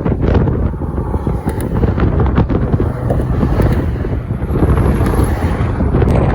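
Strong wind buffeting the microphone, a loud, steady, rumbling roar.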